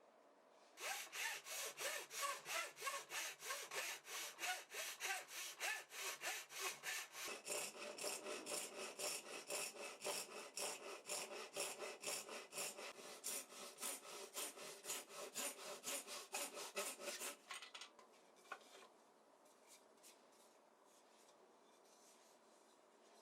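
Hand saw cutting wood in quick, even back-and-forth strokes, about three a second. It stops about three quarters of the way through.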